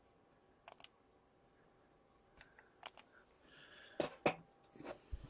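A few short, faint clicks and taps at a desk: a quick pair near the start, a few more in the middle, and the loudest pair of knocks about four seconds in.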